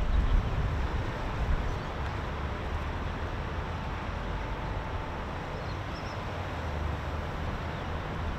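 Steady outdoor ambience: a low rumble of distant road traffic with some wind on the microphone.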